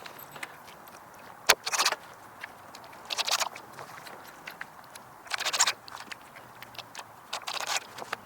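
Impact driver sinking screws into the wooden greenhouse frame in four short rattling bursts, each under a second, with a sharp click just before the first.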